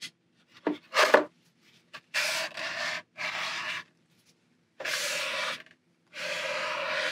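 Water mister spray bottle hissing out four even sprays, each just under a second long with short gaps between, misting water onto a still-wet watercolor wash of grass.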